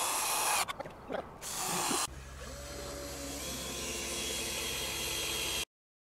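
Cordless drill driving screws through wooden boards into posts, in two bursts of whining in the first two seconds. Then a steady rushing noise with a low hum, which stops abruptly near the end.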